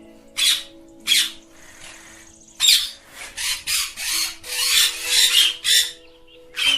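Ringneck parrot giving short, harsh squawking calls: two spaced calls, then a rapid run of about eight from a couple of seconds in.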